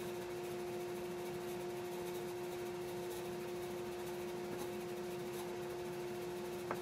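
Steady workshop hum at one constant pitch, with a single light tap near the end.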